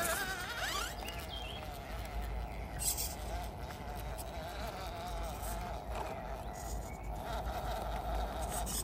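Small electric motor and gearbox of a 1/18-scale RC crawler whining as it crawls while towing a small trailer, the pitch wavering up and down with the throttle.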